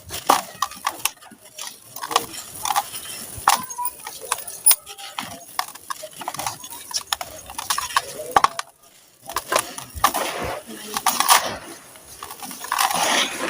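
Dry sand-cement chunks being crushed and crumbled, with many irregular sharp crackles and crunches and a few longer gritty crumbling runs, the longest near the end.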